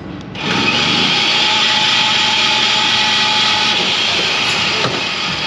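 Electric rebar bending machine starting up about half a second in, then running steadily with a whine over a hiss while it bends a rebar dowel.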